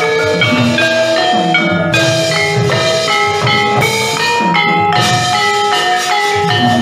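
Gamelan playing a fast passage: bronze metallophones strike a quick running line of ringing notes over low drum strokes.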